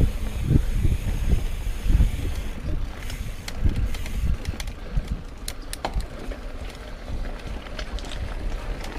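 Mountain bike riding over a rough dirt trail: a gusty low rumble of wind on the microphone and tyres, with scattered clicks and rattles from the bike.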